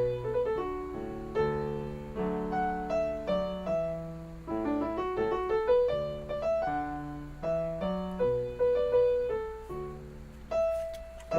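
Piano backing track playing a slow melody over chords, each note struck and fading away.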